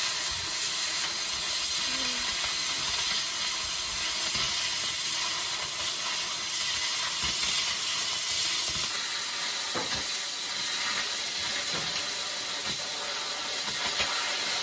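Steady hissing of a steel support piece being cut, running evenly throughout.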